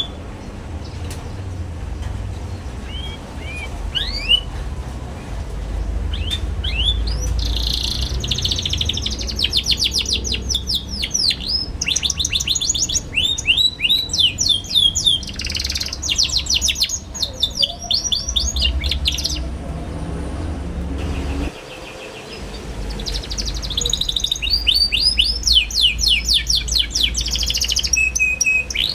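Young domestic canary twittering in long, fast runs of repeated down-slurred chirps, with a short lull about two-thirds of the way through. A low hum runs underneath.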